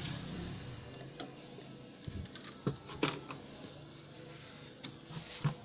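Scattered light clicks and taps from hands handling wiring and parts on an opened CRT TV chassis and the workbench, about half a dozen in all, the sharpest about halfway through and near the end.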